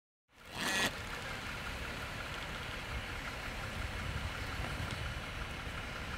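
Jeep Wrangler JL idling, a steady low rumble that comes in after a short rush of noise about half a second in.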